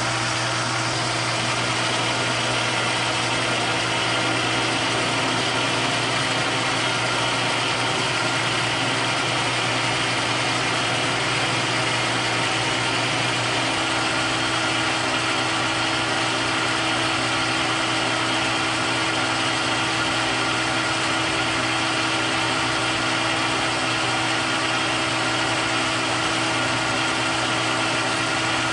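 Metal lathe running steadily under power feed, taking a light 0.010-inch skim cut along a turned, ground and polished steel shaft to check it for taper. A constant machine hum with a few held tones, unchanging throughout.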